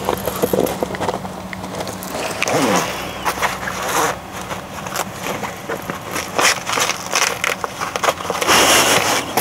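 Snake gaiters being pulled on and fastened over boots and trousers: irregular rustling of stiff fabric with clicks and rasping rips of the fasteners, the longest rasp near the end.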